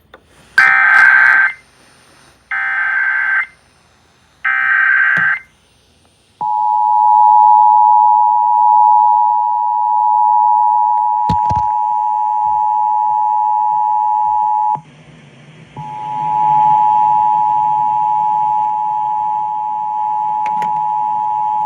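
Emergency Alert System opening on FM radio: three short screeching bursts of SAME header data tones, then the steady two-tone EAS attention signal, the sign that an emergency alert, here a tornado warning, is about to be read. The attention tone drops out for about a second roughly two-thirds of the way through, and a low hum and hiss sit under it when it comes back.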